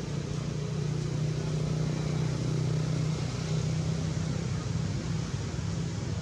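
A steady low mechanical drone over an even hiss, holding level without a break.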